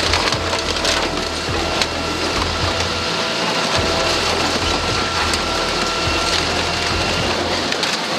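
Hydraulic excavator's jaws tearing and crushing an airliner's aluminium fuselage: a dense, continuous crunching of metal and debris with many sharp cracks, over the low steady rumble of the excavator's engine.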